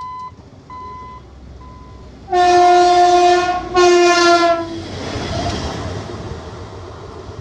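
Railway inspection car sounding its horn in two long blasts, the second following right after the first, then the rumble of the car running past and fading away. A few short electronic beeps, fading, come before the horn.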